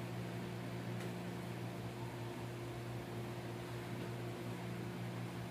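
A steady low motor hum with an even hiss over it, unchanging throughout.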